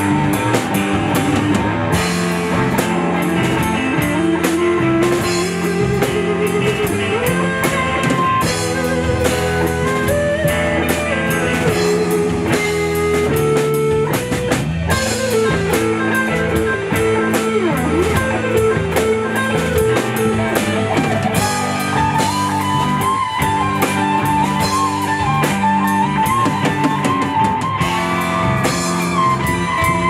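Live rock band playing an instrumental passage: electric guitars, bass and drum kit, with a lead melody line that slides up and down between notes.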